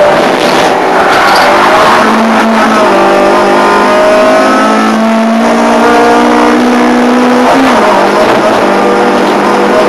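Ford Fiesta 1.4 Zetec four-cylinder race engine running hard, heard from inside the car's cabin. Its note holds steady for several seconds, then its pitch drops suddenly about three-quarters of the way through.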